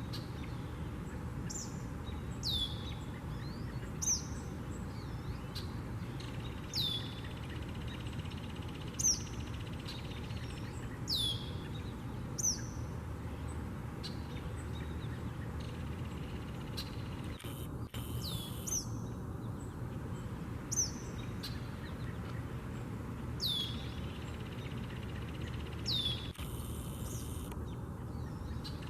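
A songbird calling: short, high, steeply falling notes repeated every second or two, over a steady low background rumble.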